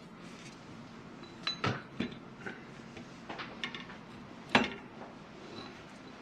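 Screws and small metal parts of a wind turbine kit being handled: scattered light clinks and knocks, with one sharper knock a little past halfway.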